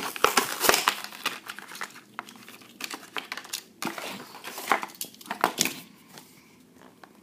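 A diecast car's blister pack, stiff clear plastic on a cardboard backing card, crinkling and crackling as it is pulled open by hand, with scattered clicks and rustles. The sound thins out about six seconds in.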